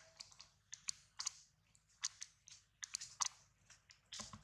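Baby macaque biting and chewing a piece of green fruit: a string of short, irregular crunching clicks, with the loudest cluster about three seconds in.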